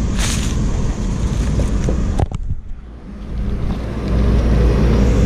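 Paper sheets rustling and being handled, with a short rustle just after the start and a few sharp clicks a little over two seconds in, over a steady low rumble that grows louder near the end.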